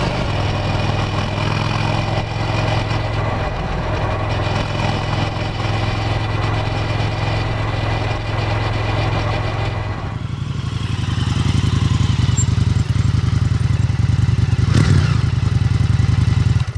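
Indian FTR 1200 S's 1203 cc V-twin running steadily under way, its engine note mixed with road and wind noise. About ten seconds in the sound changes to the stationary bike heard close at its twin exhaust pipes, a louder, deeper steady run with a short sharper sound near the end.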